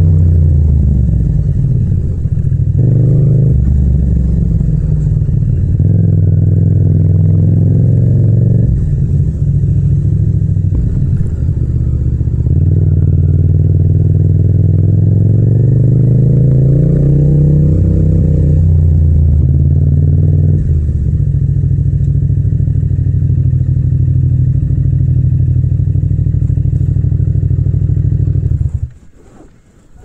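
Yamaha MT-07's 689 cc parallel-twin engine and exhaust at low riding speed, revs rising and falling with several short breaks as the throttle is opened and closed. The engine sound cuts off near the end.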